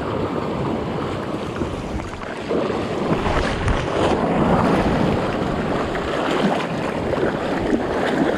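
Wind buffeting the microphone over the wash of surf, growing louder about two and a half seconds in.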